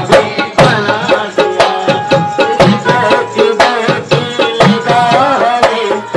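Qawwali music between sung verses: a harmonium melody with wavering and held notes over steady dholak drumming and hand claps.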